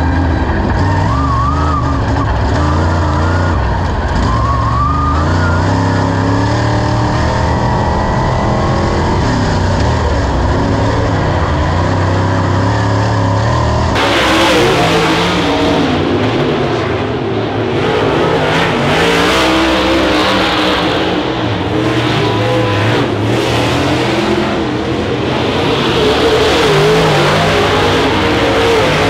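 Dirt late model race car V8 engines running around a dirt oval during hot laps, the engine pitch rising and falling as the cars go around. About halfway through the sound changes abruptly to a fuller, hissier mix.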